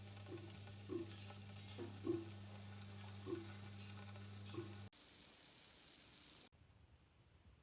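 Faint sizzling of food frying in a pan, with small irregular pops over a steady low hum. It drops away about five seconds in and fades to near silence near the end.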